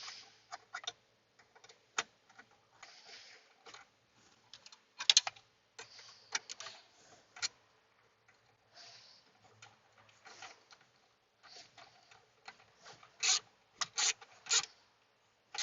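Hand ratchet clicking in irregular spurts as 7 mm bolts are run in, with rattling and scraping of tools and parts, and a few louder clicks near the end.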